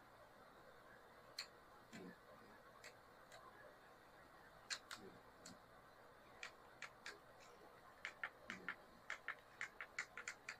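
Faint, sharp clicks and a few soft taps of small parts being handled during RC crawler work, sparse at first and then coming about three or four a second near the end.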